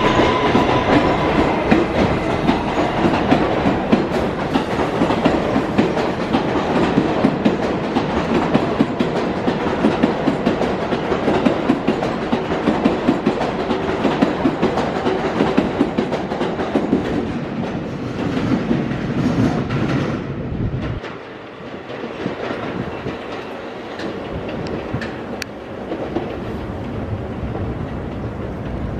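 R188 subway train passing close by at speed, its wheels clattering rapidly over the rail joints. About two-thirds of the way through, the sound drops suddenly to a quieter, steadier train rumble.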